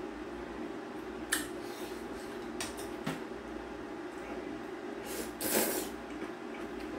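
Eating noodle soup: a few light clicks of metal chopsticks against a bowl, then a noisy slurp of kalguksu noodles about five seconds in, over a steady low hum.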